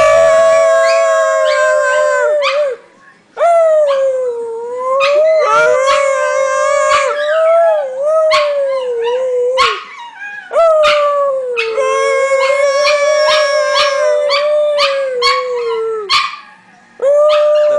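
Chihuahua howling in long, drawn-out howls that waver slightly in pitch, with short breaks about three seconds in and near the end.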